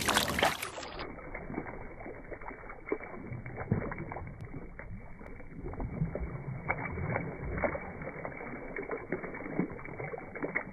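A brief loud rush at the very start, then water splashing irregularly as hands and feet slap and scoop the surface of a swimming pool, with a steady watery hiss between the splashes.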